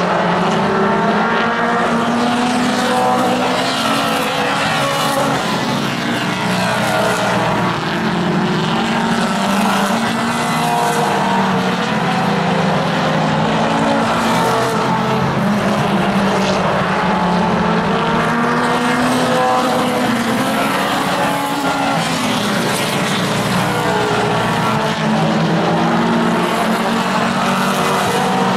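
Mini stock race cars' four-cylinder engines running at racing speed as the cars lap the oval, several engine notes overlapping and rising and falling in pitch as they go through the turns and down the straights.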